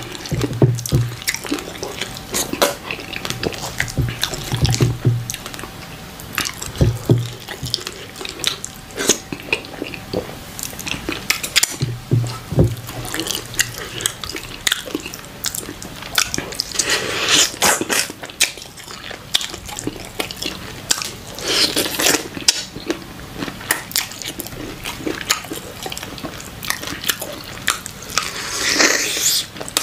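Close-miked eating by hand: wet chewing and lip-smacking on fufu and pepper soup, with many small sticky clicks and a few short low hums in the first half. Near the end comes a louder bite into a piece of chicken.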